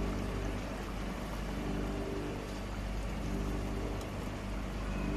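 Sweet potato chips frying in hot oil in an electric batch fryer: a steady bubbling sizzle, with a low machine hum that swells in and out every second or two.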